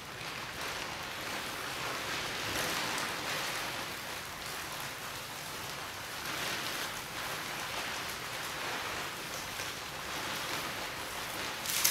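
Plastic tarpaulin and plastic sheeting rustling and crinkling as a dancer moves inside them, swelling and easing off in waves, with one sharper crackle near the end.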